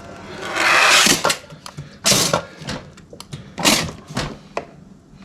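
LG fridge water dispenser spitting air and water into a container in a hiss and then several short sputters, as a newly fitted water filter is purged of air.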